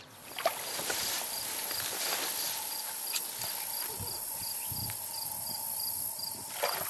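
Chorus of singing insects in the streamside grass: a steady, high-pitched drone with a regular pulsing chirp over it, and a lower steady drone that stops shortly before the end.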